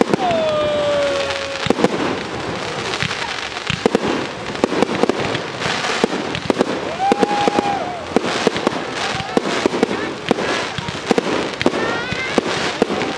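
Fireworks display: a dense run of bangs and crackling from aerial shells and comets going off in quick succession, without a break.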